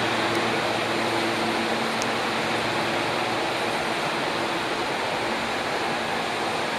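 Nishitetsu 3000 series electric train running alongside the platform: a steady rushing rumble of wheels and running gear that grows slightly quieter, with a faint low hum coming and going.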